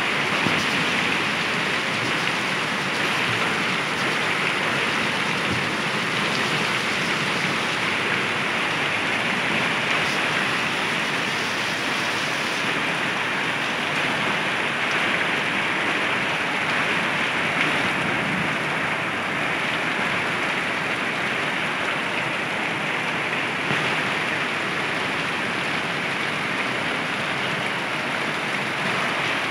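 Hail mixed with heavy rain pelting the ground: a dense, steady hiss of falling ice pellets and raindrops.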